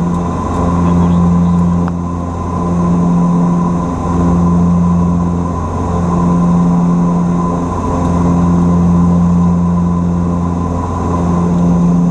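Antonov An-26's two Ivchenko AI-24VT turboprop engines running on approach: a steady propeller drone with a strong low tone that swells and fades about every two seconds, over a fainter steady whine.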